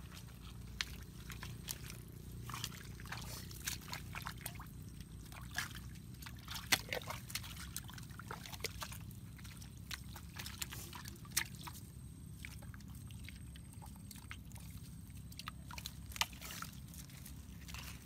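Wet mud and shallow water squelching and sloshing as bare feet tread a mangrove mudflat and a hand digs into a waterlogged crab burrow. Many small irregular wet clicks and splashes sound over a low steady rumble.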